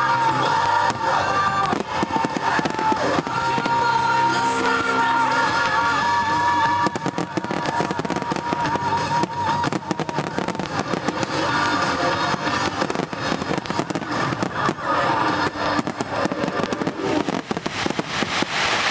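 A rapid barrage of fireworks shells bursting and crackling, with music playing along. A melody is heard in the first half, and near the end the bursts and crackle grow denser.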